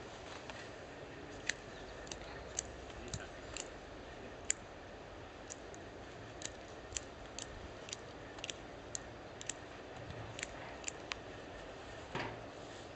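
Hand pruning shears (secateurs) snipping the thin shoots of a young 'Guara' almond tree: about twenty sharp clicks at an uneven pace, one to two a second, with a longer crackling cut near the end.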